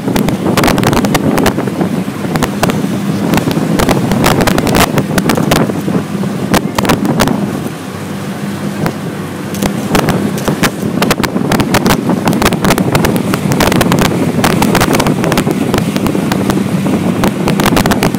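Wind buffeting the microphone with rapid crackles and thumps, over the steady low drone of a boat engine.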